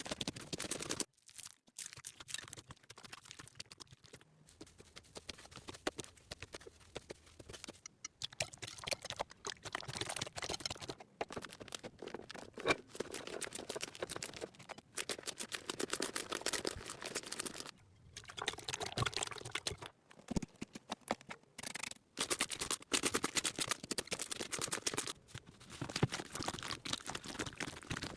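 Slime being squished and worked, a dense run of small sticky pops and crackles with a few brief pauses.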